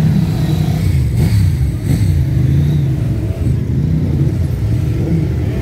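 Many motorcycle engines running together as a column of bikes rolls slowly past at low revs, a loud continuous mass of engine notes, some rising and falling as riders work the throttle.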